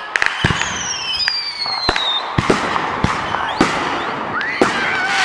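Fireworks going off: about ten sharp bangs and pops at irregular spacing, with a high whistle falling in pitch for about a second and a half, starting about half a second in, over a crackling haze.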